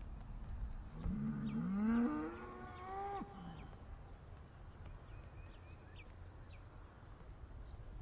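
A cow mooing: one long call starting about a second in, rising in pitch and dropping away as it ends, over a low background rumble.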